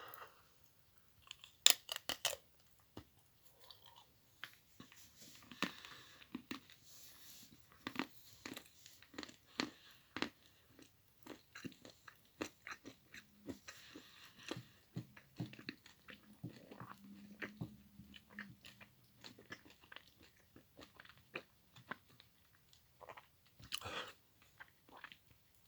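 Close-up chewing and crunching of a milk chocolate Easter egg with mixed-in pieces. There are a few loud sharp cracks about two seconds in and again near the end, with irregular crunching and chewing between them.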